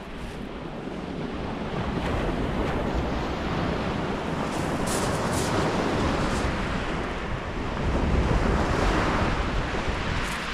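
Sea surf breaking and washing on the shingle of Chesil Beach, with wind on the microphone. The roar swells over the first couple of seconds and is loudest about eight seconds in.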